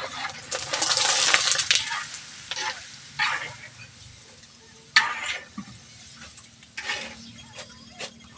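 Macaroni frying in hot oil in a wok, sizzling, while a wire strainer stirs and scoops it, scraping and clinking against the wok. The sizzle is loudest in the first two seconds, then comes as separate short scrapes a second or two apart.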